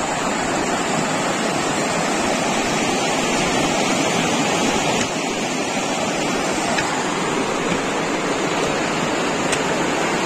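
River water rushing over rocks in shallow rapids: a steady rush, dipping slightly in level about five seconds in.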